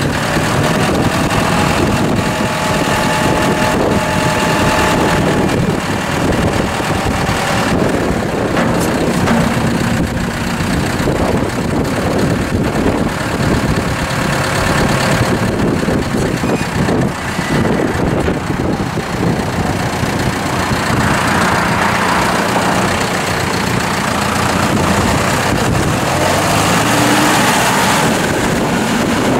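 John Deere 5085E tractor's four-cylinder turbocharged diesel engine running steadily as the tractor drives slowly past.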